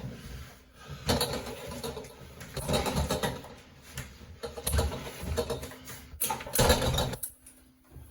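Stair-climbing dolly carrying a refrigerator on the stairs, its mechanism running in short bursts with deep bumps as the load is worked down the steps. There are about six irregular bursts, the last a little after six seconds in.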